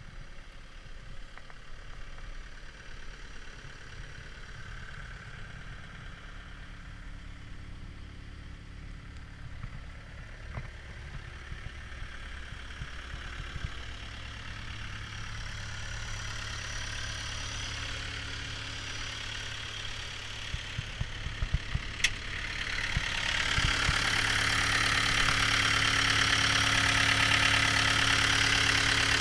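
CAT 242B3 skid steer's diesel engine running at idle, growing louder through the second half and stepping up sharply about three-quarters of the way in, with a single sharp click just before.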